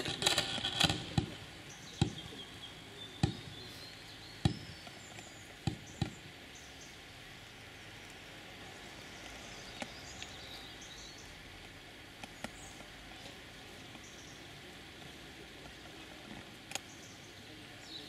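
Hushed crowd ambience with a few sharp knocks in the first six seconds, roughly a second apart, then only a faint background.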